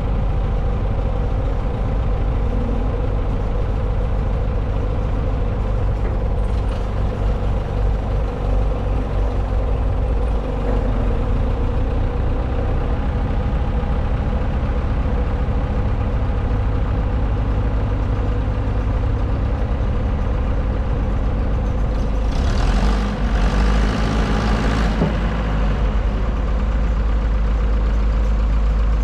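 Skid steer's diesel engine running steadily while powering a Halverson 140B firewood processor, with a louder burst of noise lasting about two seconds most of the way through.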